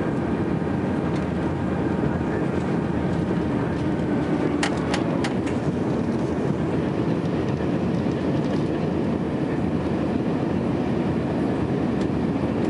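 Steady cabin noise inside an Airbus A300 on final approach: the turbofan engines and the rush of air over the wing, with its flaps extended. A quick run of three or four sharp clicks about five seconds in.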